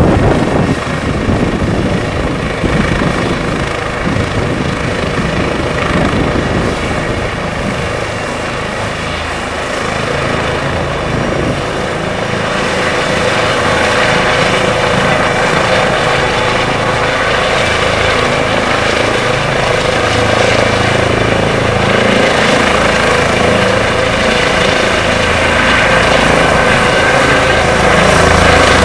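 Eurocopter EC135 police helicopter running on the ground with its main rotor turning: a steady rotor beat and twin-turbine whine. About twelve seconds in, the high turbine whine climbs in pitch, and the sound grows louder toward the end.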